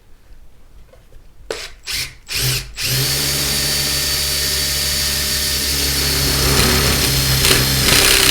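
Power drill drilling out a tamper-proof screw. It is blipped briefly a few times, then runs steadily from about three seconds in, getting slightly louder near the end.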